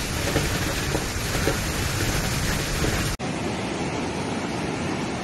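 Storm wind and heavy rain blowing in gusts, then, after a sudden cut about three seconds in, the steady rush of muddy floodwater surging through a channel.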